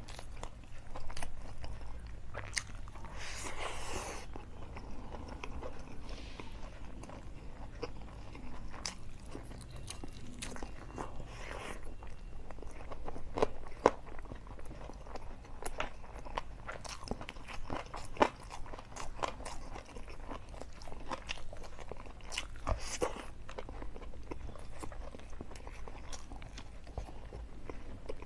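Close-miked mouth sounds of a person eating rice and curry by hand: steady chewing with many short wet clicks and smacks. A few brief hissing sounds come about 3 s in, near the middle and near the end.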